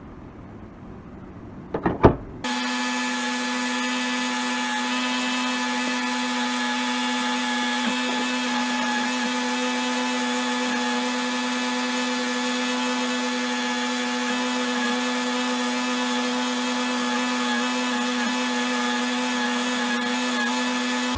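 An electric power tool's motor starts suddenly after a couple of clicks, then runs at a steady speed with a constant hum, typical of the grinding, buffing or drilling used in restoration work.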